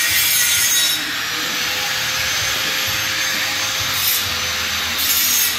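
Steel plate being cut or ground by hand-held metalworking equipment: a loud, steady rushing hiss with a faint steady hum under it.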